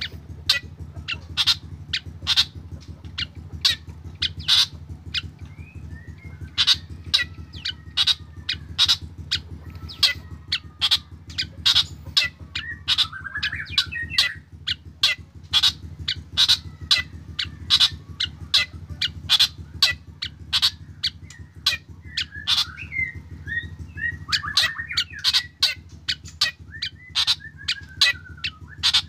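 Black drongo calling in a long run of sharp, clipped notes, two or three a second. Twice it breaks into a short warbling phrase. A steady low hum lies underneath.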